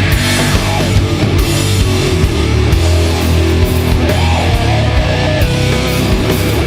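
Loud doom metal: heavily distorted electric guitars and bass playing a slow, dense riff, with drums and cymbal hits.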